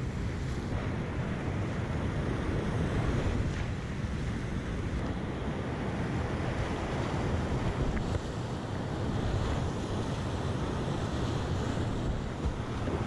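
Whitewater rapids rushing and churning around a kayak, heard close up from a camera on the boat, with heavy wind and water buffeting on the microphone. Steady throughout.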